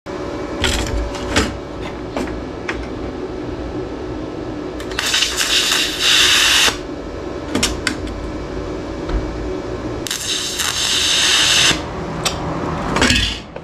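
Lift-start TIG arc from a YesWelder Flux 135 Pro, burning twice in loud bursts of hiss, about five and ten seconds in, each under two seconds, struck without the shielding gas turned on. A steady hum runs underneath, with a few sharp clicks near the start and end.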